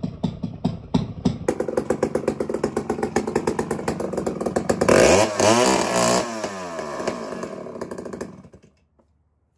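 Vintage Poulan S-72 two-stroke chainsaw with a six-foot bar running: a slow, pulsing idle, then the throttle opens about a second and a half in, and it revs up and down hardest around five to six seconds in. It is shut off and dies away about eight and a half seconds in.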